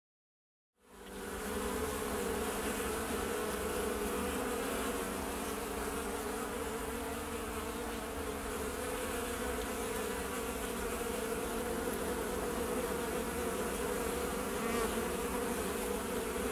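Honeybees at a wooden hive entrance: a steady, even hum that fades in about a second in.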